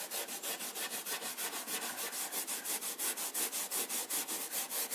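A small pad of steel wool wet with pale boiled linseed oil scrubbed fast back and forth over an old shellac-finished timber cabinet top, a steady rasping at about six strokes a second.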